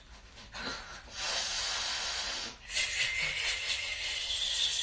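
A woman breathing out hard through pursed lips in two long, hissing breaths, the first starting about a second in and the second soon after. These are deep breaths taken while shaking the whole body in a breathing exercise.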